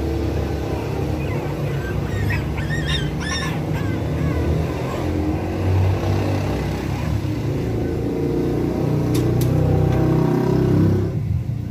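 Pet blower dryer running steadily with a loud, even fan noise. A few short high cries come through it about two to three and a half seconds in, and the dryer's hiss drops away just before the end.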